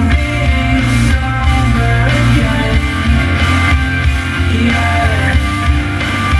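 Rock music with heavy, steady bass played through a Technics SA-EX700 stereo receiver and a passive Technics subwoofer.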